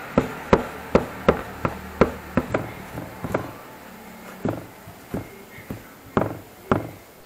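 Repeated sharp knocks of a painted metal sanggot blade tapping against a tile countertop as it is rubbed back and forth with a cloth. The knocks come about three a second at first, then sparser and more irregular.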